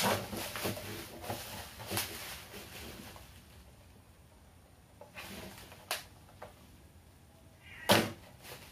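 Packaging handling as a Huawei B310 modem is taken out of its box: rustling of cardboard and packing with scattered knocks and clicks, the loudest knock near the end.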